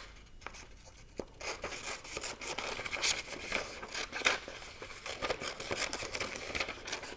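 Scissors snipping through construction paper, a run of short cuts with paper rustling, starting about a second and a half in.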